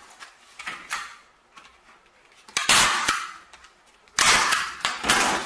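Canvas rustling as a corner is folded, then a staple gun firing twice, about a second and a half apart, driving staples through the folded canvas into the stretcher strip.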